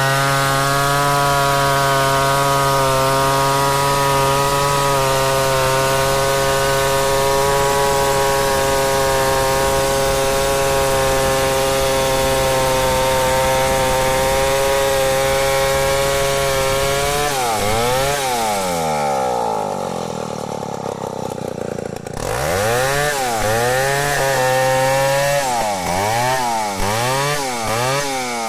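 Stihl 070 chainsaw ripping lengthwise through a log under steady load, its engine holding one even pitch. About 17 seconds in it comes off that steady note and is revved up and down again and again, with a short quieter spell in between.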